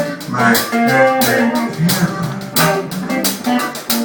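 Band playing a song, with guitar and a drum kit keeping a steady beat.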